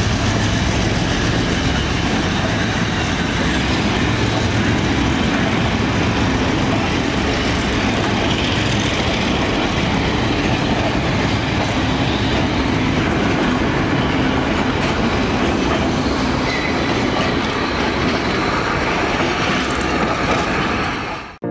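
A freight train of oil tank wagons rolling past, steel wheels clattering over the rail joints, with the hauling diesel locomotive's engine hum fading over the first few seconds. The sound cuts off abruptly near the end.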